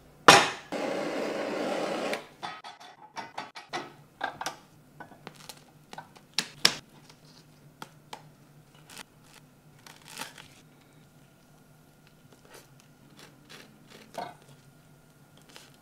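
A small tabletop grill is set down with a knock, followed by about a second and a half of rushing noise. Then come scattered metallic clicks and taps as tongs work mochi rice cakes on the wire grill rack over a faint steady hum.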